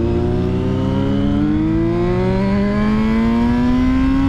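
Yamaha FZ6's 600 cc inline-four engine pulling in one gear as the motorcycle accelerates, its pitch rising smoothly and steadily.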